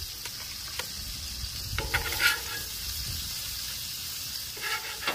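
Fish fillets sizzling steadily in oil and butter on a hot Blackstone flat-top griddle. A few light clicks and scrapes come as more pieces are laid down with a spatula.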